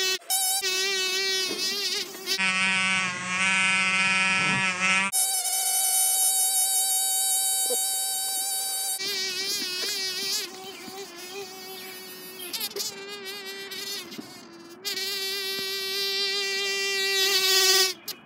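Air squealing out of a balloon's neck as it deflates: a shrill, buzzing whine whose pitch wavers and jumps between steady stretches. It goes quieter about halfway through, comes back louder, and stops abruptly near the end.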